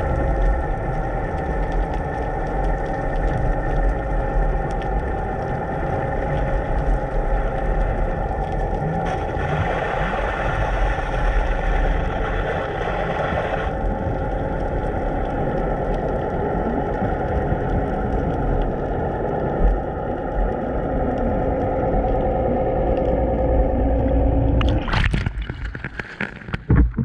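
A boat's engine running, heard underwater as a steady hum with several held tones. About two seconds before the end the camera is lifted out through the water surface with splashing and bubbling.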